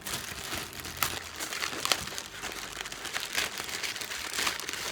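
Parcel packaging crinkling and rustling in a continuous run of small crackles as an online-order package is unwrapped.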